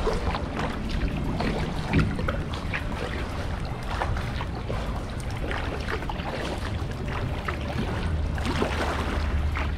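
Double-bladed kayak paddle strokes, the blades dipping and splashing on alternating sides with water trickling off the raised blade. There is one sharper knock about two seconds in.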